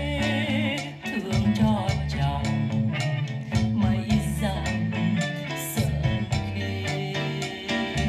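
A recording of a Vietnamese ballad playing back through a pair of large floor-standing hi-fi loudspeakers in a room, with guitar accompaniment and a wavering vocal line over a steady bass.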